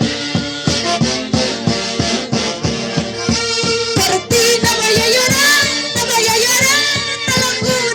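Music by a Huancayo orquesta típica: a steady, quick beat of low strokes under a melody line, which becomes more wavering and prominent about halfway through.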